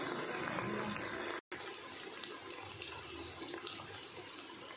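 Sliced onions frying in hot ghee and oil in an aluminium pressure cooker: a steady sizzle, cut off for an instant about a second and a half in.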